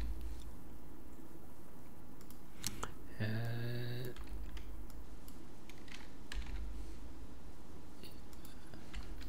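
Computer keyboard keys and mouse buttons clicking at scattered moments, with a short hummed voice sound about three seconds in.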